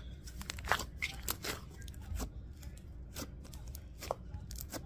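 Sticky, lightly activated slime being kneaded and stretched by hand, giving irregular sticky crackles and pops.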